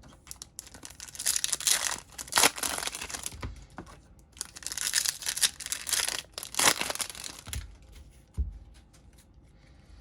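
A foil trading-card pack being torn open and its wrapper crinkled, in two spells of rustling, then a few light ticks of cards being handled.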